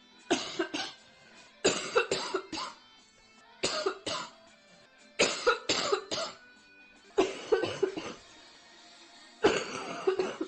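A girl coughing nearly uncontrollably from a severe chest cold: six fits of two to four harsh coughs each, coming about every two seconds, over faint background music.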